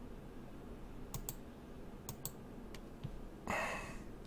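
Computer mouse clicking: two quick double-clicks and then two single clicks. A short hissing rustle, the loudest sound, comes about three and a half seconds in.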